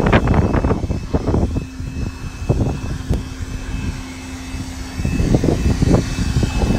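A vehicle engine's steady drone, setting in about a second and a half in, under wind buffeting the microphone.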